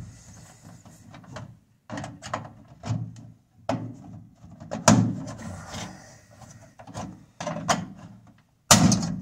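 Plastic door trim ring of a Maytag microwave being pried off by hand: a series of irregular clicks and knocks as the snap-in clips work loose, the loudest about five seconds in and another near the end.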